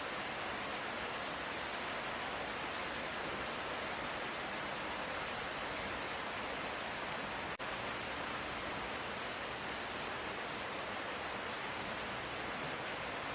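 Steady light rain, an even hiss with no thunder, broken once by a very brief dip in level about seven and a half seconds in.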